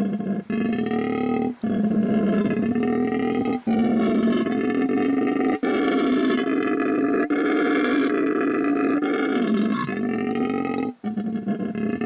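Mantled howler monkey howling: a deep, loud, continuous roar broken by short pauses for breath every one to two seconds.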